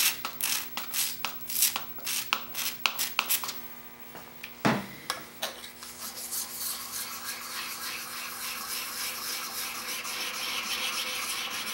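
A trigger spray bottle squirts about a dozen quick times onto a diamond sharpening stone, then a couple of clacks. From about halfway in, a steel block plane blade is rubbed steadily back and forth on the wet DMT diamond stone, the diamond grit scraping the steel as the blade is flattened.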